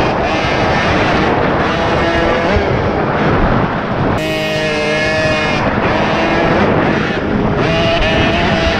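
Dirt bike engine revving up and down as it is ridden along a dirt track, heard from a helmet-mounted camera, with a sudden jump in the engine note about four seconds in.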